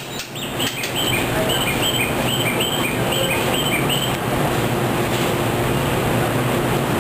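Steady low hum of a stopped JR 113 series electric train with station background noise. Over it, for about the first four seconds, a quick repeating high chirp alternates between two pitches, then stops abruptly.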